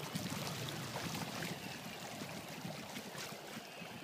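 Choppy lake water lapping and splashing against the side of a small boat, a steady irregular wash.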